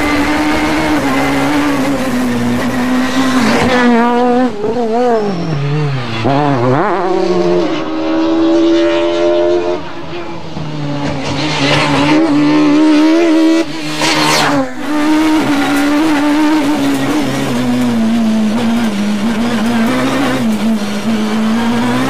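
Peugeot 306 Maxi rally car's naturally aspirated two-litre four-cylinder engine revving hard, its pitch climbing and dropping again and again through gear changes and lifts.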